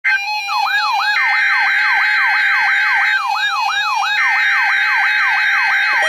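Midland NOAA weather alert radio sounding its alarm for a Required Weekly Test: a rapid, repeating rising siren sweep about three times a second. Over it a steady high tone sounds, drops out briefly after about three seconds, then comes back.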